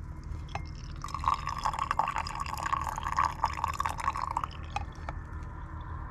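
Brewed coffee trickling and dripping from a red plastic pour-over filter into a ceramic mug, from about a second in until it tapers off a little after the middle. A low steady hum runs underneath.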